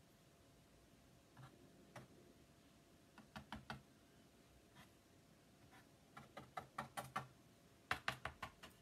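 Faint, irregular small clicks and taps of hard objects being handled on a work surface: a few single taps, then a quick cluster about three and a half seconds in, and a denser run of taps over the last few seconds.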